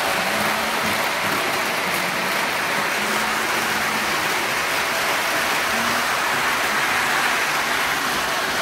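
O scale model train running on its track: a steady rushing hiss of wheels on rail and electric motor, with a faint hum underneath.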